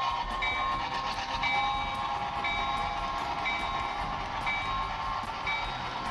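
HO-scale model train running on the layout, heard from a camera riding on one of its cars: a steady running noise with fine irregular clicks, and a short two-note beep repeating about once a second.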